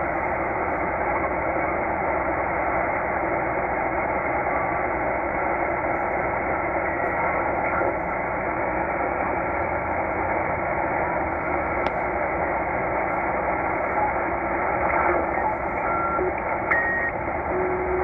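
Shortwave static hiss from a Tecsun H-501x receiver's speaker in upper sideband while it is tuned slowly across the utility band above the 20-metre ham band. The hiss is steady and narrow, and a few brief whistling tones at different pitches come and go near the end as the dial passes signals.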